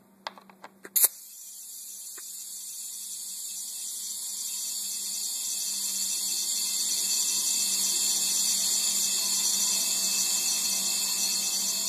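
Steady hiss of compressed air flowing through a Schrader valve into a pneumatic cannon's air chamber as it is filled to 60 PSI. It starts with a click about a second in, grows gradually louder, and cuts off with a click at the end.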